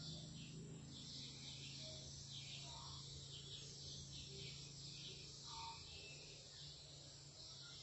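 Faint, continuous high-pitched twittering of edible-nest swiftlet calls, many short chirps overlapping, over a steady low hum.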